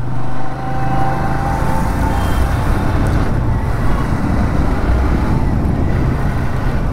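Motorcycle running steadily at road speed: a constant low engine drone under an even rush of wind and road noise.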